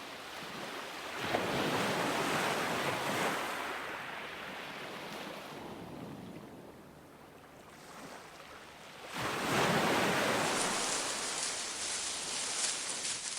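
Ocean waves surging and washing back, with two big swells, one about a second in and one about nine seconds in, quieter in between.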